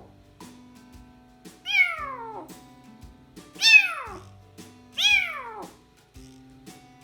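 A kitten about three to four weeks old meowing three times, each cry high and falling in pitch, over soft background music.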